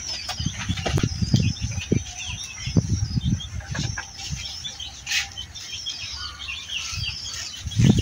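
Small birds chirping and twittering in a garden, over irregular low rumbling thumps that grow louder near the end.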